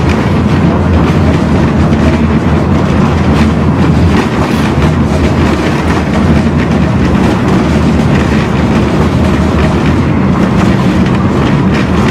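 Tram running along its tracks, heard from inside the car: a steady low rumble of wheels on rails and running gear, with a few faint clicks scattered through it.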